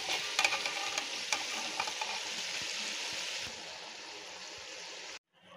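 Hot oil and tomato masala sizzling in a steel pot as eggplants are tipped in onto the potatoes, with scattered clicks and knocks of vegetables and utensil in the first two seconds. The sizzle eases after about three seconds and cuts off suddenly near the end.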